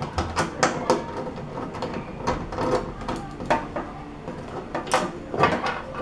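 A screwdriver backing a screw out of the plastic interior of a refrigerator's freezer compartment: a run of irregular clicks and scrapes.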